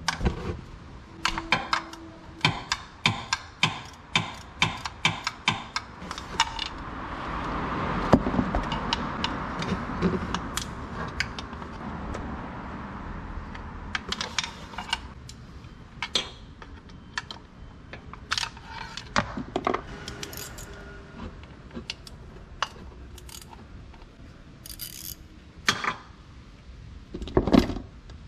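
Metal hand tools and small parts clinking and clicking as they are handled during work on the transmission, in many irregular strikes. A rushing noise swells and fades from about a quarter of the way in to just under halfway.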